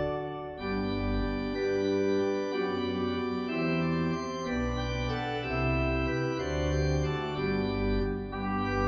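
Organ music: slow held chords over a deep bass line, changing every second or so, with a brief break about half a second in.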